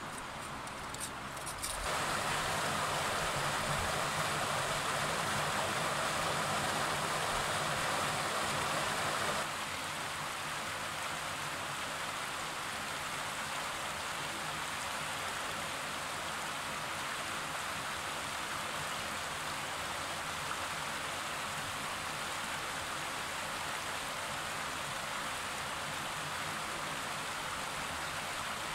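Fast river rushing over rocks, a steady rush of water; it grows louder about two seconds in and drops back a little near ten seconds.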